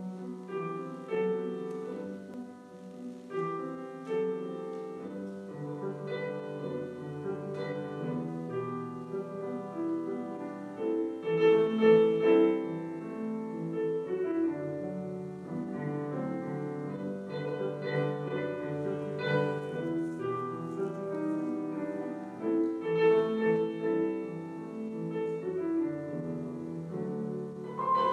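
Piano music: held chords under a melody, played throughout.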